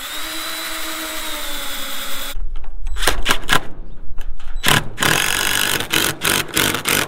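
DeWalt 20V cordless drill driving screws through a steel door hinge into wood: the motor spins up to a steady whine, then from about two and a half seconds on it gives way to uneven clicking and rasping.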